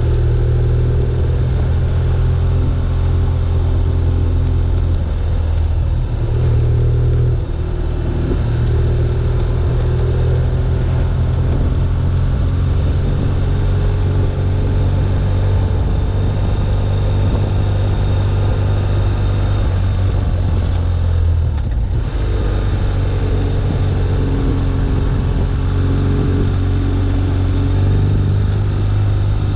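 BMW R1200GS's boxer twin engine running steadily at road speed, its note dipping briefly about seven seconds in and again about twenty-two seconds in as the throttle changes.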